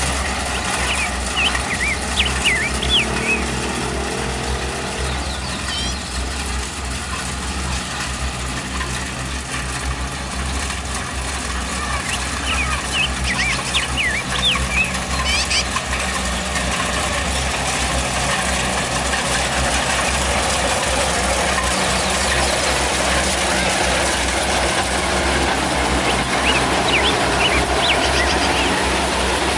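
Kubota DC-70 Plus combine harvester's diesel engine running steadily while it harvests rice in a wet paddy. Short high chirps come through the engine sound a few times.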